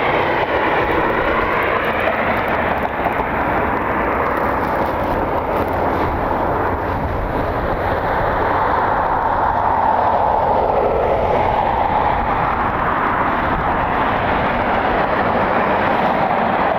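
Jet airliner's engines at takeoff power: a loud, steady rumble with tones that sweep up and down as the aircraft moves.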